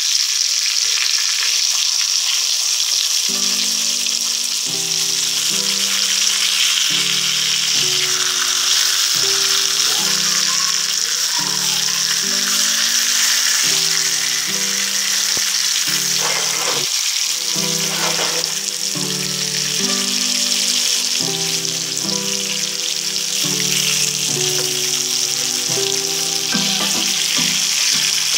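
Fish steaks shallow-frying in hot oil in a pan, a steady loud sizzle, with a metal spatula scraping and turning the pieces now and then. A faint simple melody steps along underneath.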